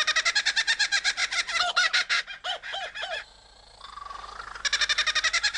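Superb lyrebird singing its mimicked song: fast runs of rapidly repeated, ringing notes, three slower swooping notes about halfway through, a brief lull, then another quick run of repeated notes near the end.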